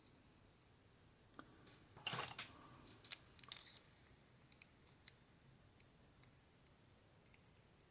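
Small metallic clicks and a short rattle of a key working in an Ikon N1 lock cylinder, used to lock the cylinder back up where a tension wrench is stuck. The loudest rattle comes about two seconds in, a few more clicks follow over the next second and a half, then only faint ticks.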